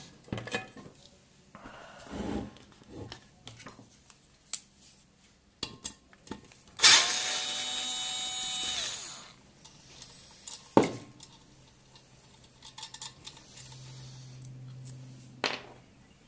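Electric screwdriver running for about two seconds, its motor whine rising as it spins up and falling as it stops. Scattered clicks and knocks of tools and parts being handled come before and after.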